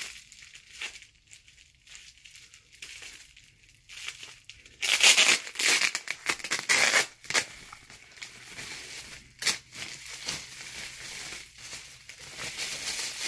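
Bubble wrap and tape crinkling and tearing as a wrapped package is pulled open by hand, in irregular bursts that are loudest from about five to seven seconds in.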